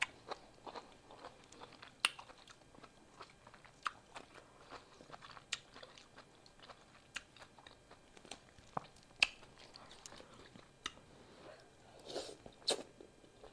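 Close-up eating sounds: chewing beef pho rice noodles, with scattered sharp wet clicks and a metal fork working in a glass bowl. Near the end there is a louder slurp as a forkful of noodles is drawn into the mouth.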